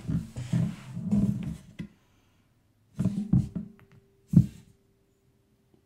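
Handling noise from an AR-15 rifle on a bipod being shifted and shouldered on a wooden table: irregular knocks and rubbing, then one sharp knock about four seconds in. A faint steady hum runs under the second half.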